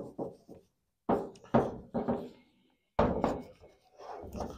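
A steering wheel knocking and bumping against a car's painted metal hood as it is lifted, turned and set down while being wiped with a rag: a string of knocks with short decays in three clusters.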